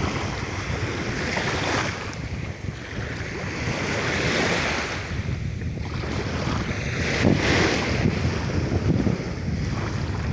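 Sea waves washing in, the surf rising and falling in swells every few seconds, with wind rumbling on the microphone.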